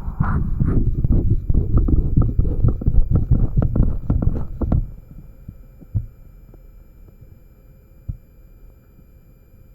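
Korotkoff sounds from a blood-pressure cuff, picked up by an electret microphone on a MAX9814 amplifier: about five seconds of loud, dense low knocking and rumbling, then much quieter, with single faint low thumps about six and eight seconds in.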